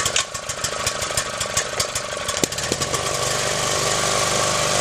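Portable generator's engine just started, running roughly with irregular popping and ticking for the first few seconds, then settling into a steady run about three seconds in.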